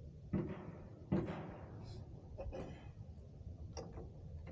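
Two sharp knocks about a second apart, followed by a few fainter clicks, from a hand grip being worked onto a motorcycle handlebar.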